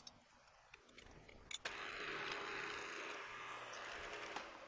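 A sharp click about a second and a half in, then the benchtop mill-drill's motor and spindle running steadily.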